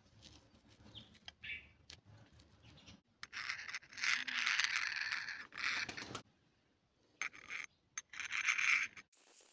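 Hand scraping and rubbing: light, faint scrapes at first, then about three seconds in a loud stretch of steady scraping lasting about three seconds, a short pause, and another loud burst of scraping near the end.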